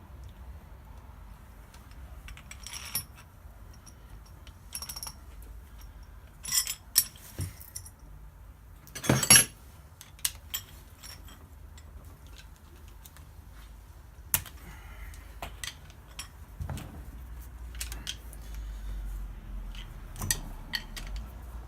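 Metal tools and parts clinking and knocking in scattered, irregular strikes, with the loudest clatter about nine seconds in.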